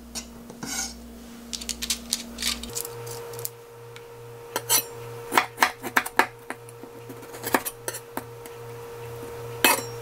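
Kitchen knife slicing soy-pickled radish on a wooden cutting board: irregular knocks of the blade meeting the board, a quick cluster about two seconds in, then scattered taps later. A faint steady hum runs underneath.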